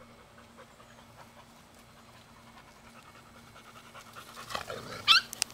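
Puppies panting while they play-fight, the sound growing busier towards the end, with a short high-pitched cry about five seconds in.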